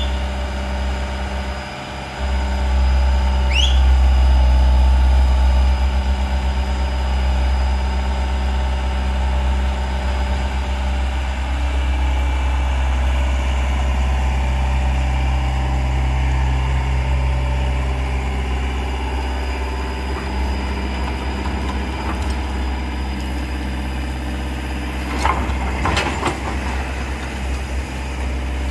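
Amphibious pontoon excavator's diesel engine running steadily, growing louder about two seconds in and settling back a few seconds later. A few sharp knocks come near the end.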